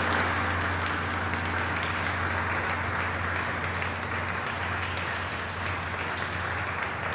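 A small group applauding by hand, with the ring of a large struck gong dying away underneath in the first second or so.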